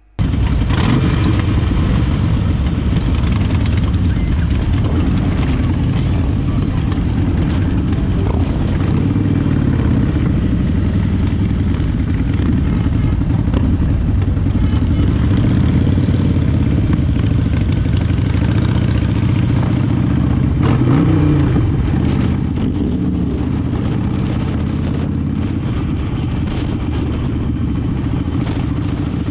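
Harley-Davidson Sportster 1200's air-cooled V-twin engine running steadily as the bike rides along with a pack of other motorcycles. The engine pitch rises and falls briefly about two thirds of the way through.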